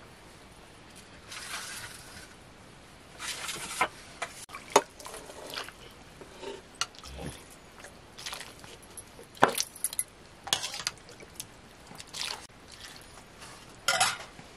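Metal ladle scraping and clinking against a steel pan and steel plates as cooked rice is dished out, in a run of separate scrapes and clinks.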